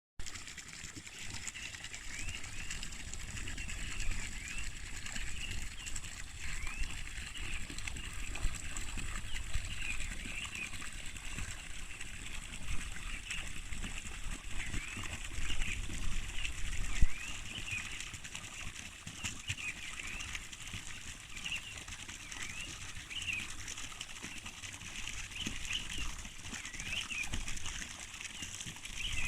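Outdoor ambience of birds chirping in short repeated calls throughout, over a steady high-pitched background hum and a low rumble. There is one sharp knock about seventeen seconds in.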